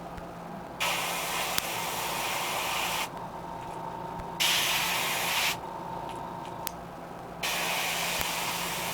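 Airbrush spraying paint onto a crankbait lure in three bursts of hiss that start and stop sharply: about two seconds, then about one second, then a longer burst starting near the end. A steady low hum runs underneath.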